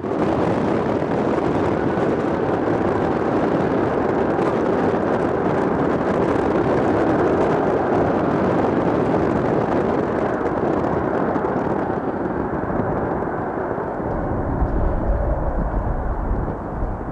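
Wide-body jet airliner's engines running at high power as it passes, a loud steady rush. The hiss fades after about twelve seconds, leaving a deep low rumble near the end.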